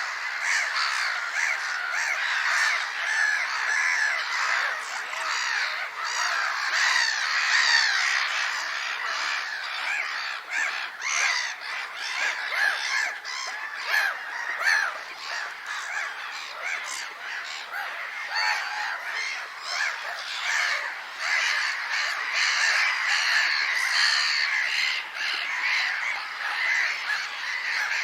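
A flock of gulls calling continuously: many cries overlapping, with no pause between them.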